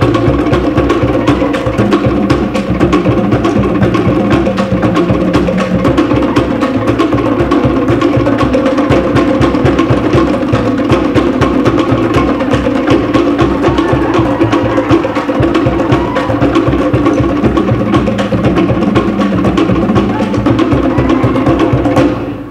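Cook Islands drum ensemble playing a fast, driving drum-dance rhythm: wooden pātē slit drums clattering over the deep beat of a skin bass drum. The drumming stops abruptly near the end.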